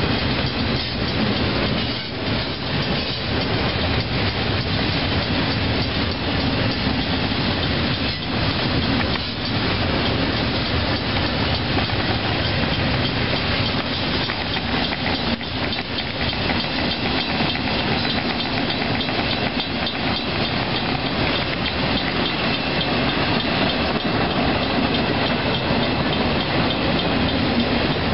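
Intermodal freight cars with double-stack containers and trailers on flatcars rolling past: a steady rumble and rush of steel wheels on rail, with occasional clacks.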